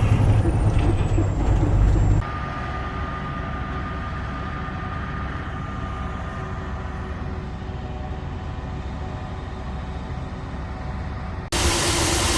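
Heavy farm vehicle engine running with a loud low rumble, cutting abruptly to a quieter steady engine hum with a faint whine. Near the end a loud hiss sets in suddenly.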